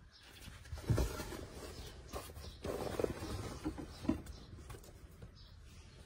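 A collapsible fabric trunk organizer being handled and pushed into place under a cot: a thump about a second in, then rustling and scraping, and a short knock about two-thirds of the way through.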